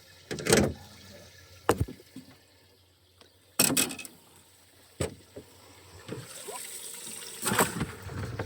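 Water splashing and sloshing, with a few sharp knocks spread through it and a rising splashy hiss near the end.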